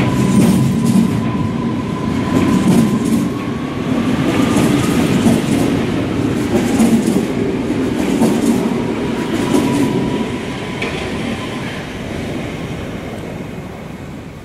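Electric suburban multiple-unit train departing along a station platform: wheels rumbling and clacking over the rails, with a thin steady whine. The sound fades away over the last few seconds as the train draws off.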